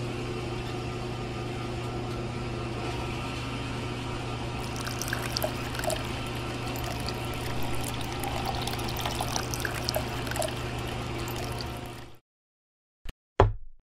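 Small DIY electric water pump running with a steady hum. From about a third of the way in, water splashes and trickles out as well, until the sound cuts off near the end. Two short knocks follow.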